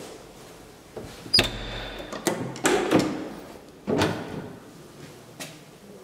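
The manual landing door of an old Titan elevator being unlatched and opened: a sharp metallic click with a brief high ring about a second and a half in, then a run of heavy door clunks, and a small click near the end.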